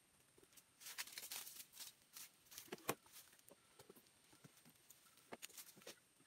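Rustling and crackling of dry leaf litter underfoot and a sack being handled, in scattered bursts about a second in and again near the end.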